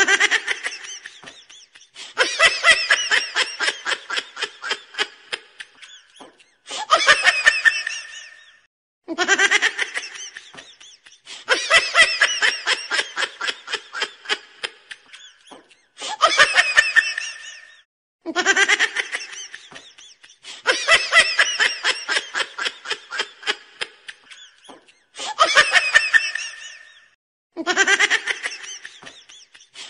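Laughter in about ten bouts of rapid ha-ha-ha, each two to three seconds long, with short breaks between.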